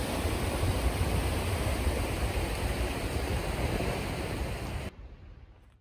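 Steady rushing of a muddy river flowing fast over rocks, with a low rumble of wind on the microphone. The sound cuts off suddenly almost a second before the end.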